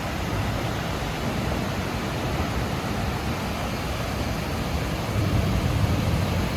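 Heavy rain pouring down in a steady, dense hiss, with a deeper rumble swelling in the last second or so.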